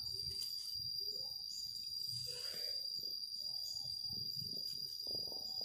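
Insects trilling steadily at a high pitch, with soft irregular rustling and scuffing from a hand petting a cat that lies on concrete.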